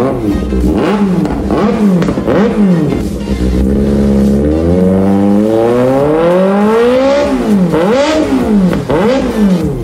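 Kawasaki ZX-6R's inline-four engine revved hard through an SC Project slip-on exhaust: a run of quick throttle blips, a longer climb in revs about halfway through that drops away, then more quick blips near the end.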